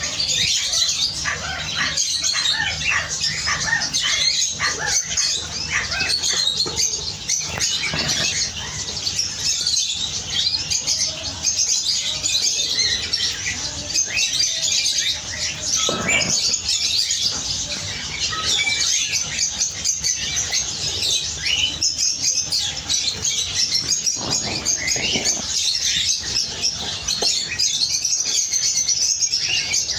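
Many canaries chirping and twittering at once, a dense, unbroken chorus of high notes, with wings fluttering now and then.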